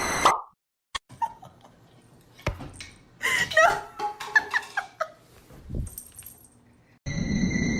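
A dog making a run of short, high-pitched vocal sounds that bend up and down in pitch, lasting a couple of seconds.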